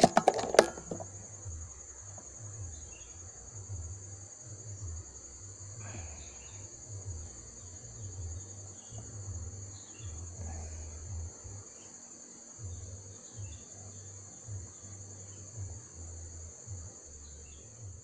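Steady high-pitched insect drone, with a few faint short chirps over an uneven low rumble. A couple of loud sharp clicks sound in the first second.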